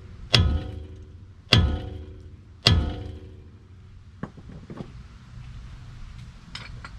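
Hammer striking the steel front suspension of a pickup near the upper ball joint: three hard ringing metal blows about a second apart, then a couple of light taps about four to five seconds in.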